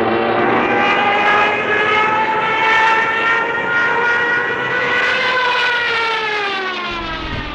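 A WW2 piston-engined combat plane flying past, its propeller engine droning. The engine note rises slightly in pitch, then falls away after about five seconds as the plane passes, growing gradually quieter.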